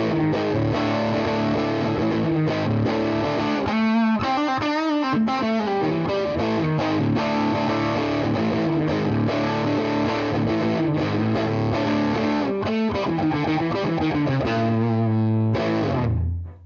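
Electric guitar played through an EarthQuaker Devices Monarch FET overdrive pedal, giving a distorted tone, with wavering bent notes about four seconds in. The playing stops near the end and the sound fades away.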